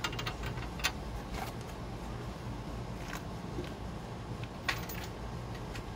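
A few scattered light clicks from hand work on a pickup's front suspension, the sharpest a little before the end, over a steady low rumble.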